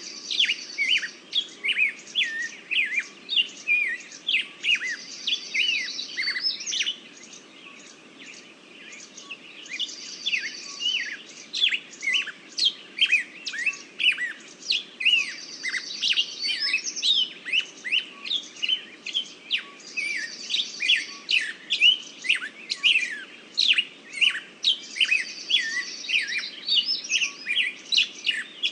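Many small birds chirping and singing in a dense chorus of quick, overlapping notes, with a buzzy trill that returns about every five seconds.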